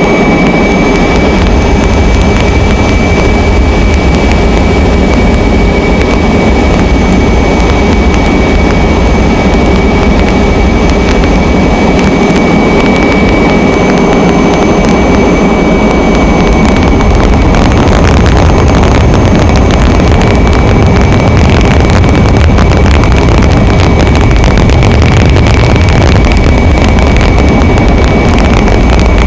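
Aircraft engine noise heard from on board: a loud, steady low drone with a thin, constant high whine over it.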